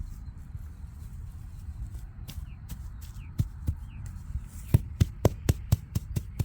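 Rapid sharp knocks, about four a second, over a low rumble. They start scattered a couple of seconds in and turn regular and louder in the second half.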